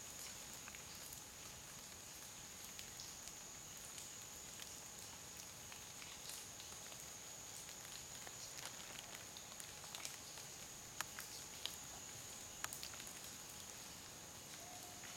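Faint forest ambience: insects droning steadily on one high note, with scattered light ticks and a few louder taps about two-thirds of the way in.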